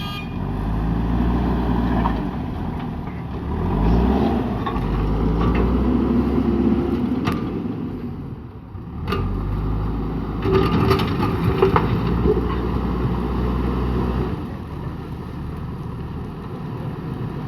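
JCB backhoe loader's diesel engine working, its revs rising and falling under hydraulic load, with two sharp knocks near the middle.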